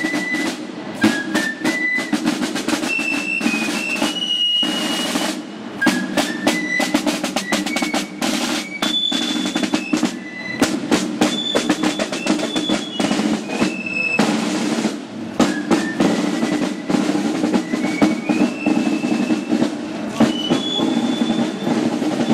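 Marching band snare drums playing a march with rolls and fast beats, backed by bass drum. A high melody moving in steps and a steady low hum sound over and under the drumming.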